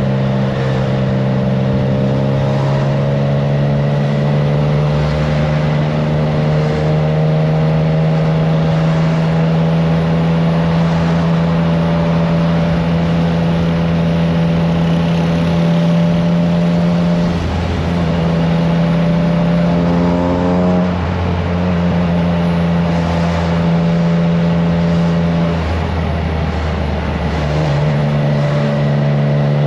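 Triumph Trident 660's three-cylinder engine breathing through a FireTong aftermarket exhaust under way, its note steady and slowly rising in pitch. The note changes briefly about two-thirds in and dips for a couple of seconds near the end. Wind rushes over the microphone throughout.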